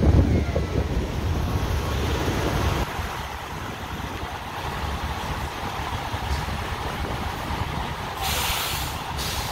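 Wind gusting on the microphone at first, then a steady rumble of the truck fire and the surrounding trucks. About eight seconds in comes a short burst of air-brake hiss lasting under a second.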